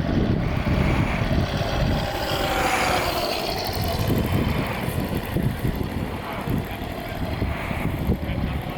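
Radio-controlled model airplane flying past, a faint motor tone that glides in pitch a few seconds in, under heavy wind buffeting on the microphone.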